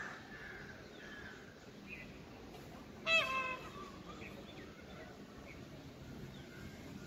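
Indian peafowl giving a single loud call about three seconds in, lasting about half a second and falling slightly in pitch. Faint short chirps of small birds sound around it.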